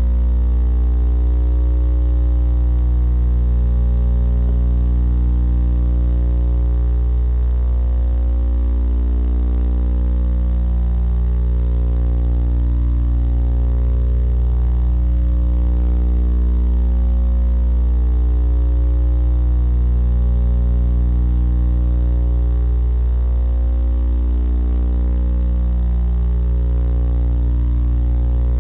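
Steady low electrical hum with an even stack of overtones, unchanging throughout, picked up in the nest box camera's audio feed.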